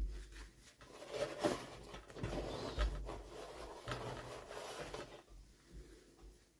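Hands unboxing small plastic toys: rustling of packaging with a few sharp clicks. The handling runs for about four seconds and fades near the end.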